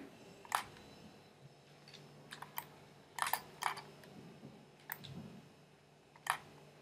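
Faint, irregular clicks of a computer mouse and keyboard, about seven spread across a few seconds, over a faint steady hum.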